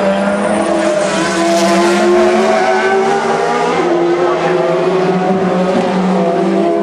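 Nissan DeltaWing race car's 1.6-litre turbocharged four-cylinder engine running hard as the car passes at speed, a steady high engine note that rises a little in pitch now and then.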